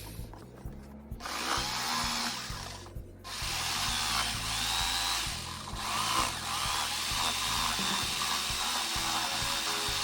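Drill press boring into wood with a spade bit, running in two stretches: a short one, then a longer continuous cut after a brief pause. Background music plays underneath.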